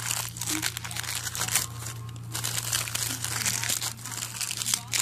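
Wrapping paper crinkling and tearing as a gift is unwrapped by hand, a dense, irregular crackle.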